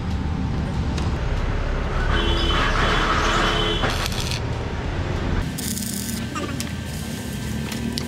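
Electric arc welding on a steel frame bracket: a crackling hiss for about two seconds in the middle, over a steady low rumble of road traffic.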